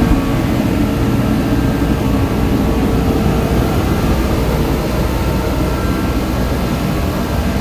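DeWalt kerosene torpedo heater running after being lit: its fan and burner make a loud, steady rushing noise with a deep low rumble. It is firing and staying lit with its fuel pressure turned up.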